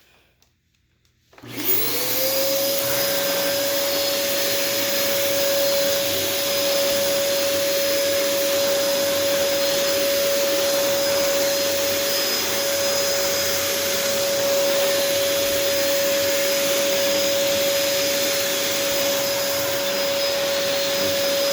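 Hoover WindTunnel Air bagless canister vacuum switched on about a second in. The motor spins up with a quickly rising whine, which levels off into a steady tone over a rush of air, and it then runs steadily.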